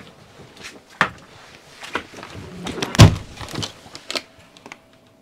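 Steps and knocks as people climb a ladder into a truck-mounted camper box, then the camper door pulled shut with a heavy thud about three seconds in, followed by a few lighter knocks and clicks.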